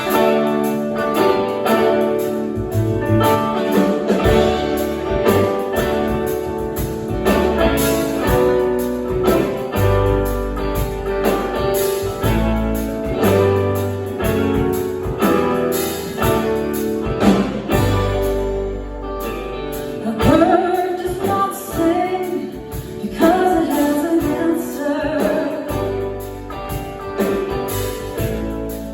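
A band playing a song with guitar, singing coming in about twenty seconds in.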